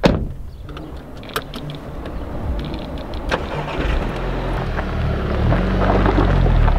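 Volkswagen Scirocco's car door shutting with a sharp thud, then the engine starting and running, growing louder toward the end.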